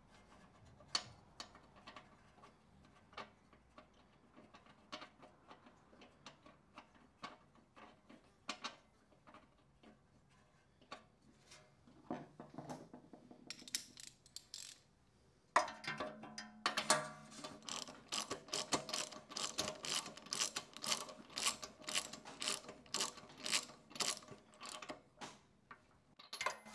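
Spark plug being refitted into a Honda GX390 cylinder head: scattered light clicks and taps, then from a little past halfway a ratchet wrench clicking steadily as the plug is wound in.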